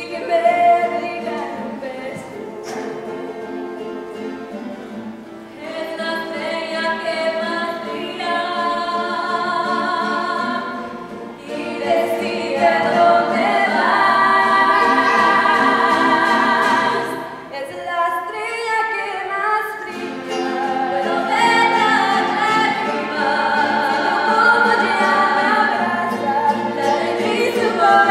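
A teenage girl singing a slow song solo, holding long notes. The singing grows louder after the first dozen seconds, with a short lull about two-thirds of the way through.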